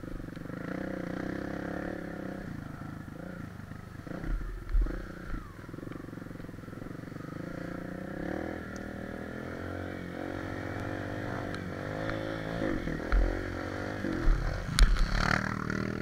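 Dirt bike engine running over a rough trail, its revs rising and falling, with occasional thumps from the bumps. Near the end come several loud thumps and clatter as the bike goes down into a rut.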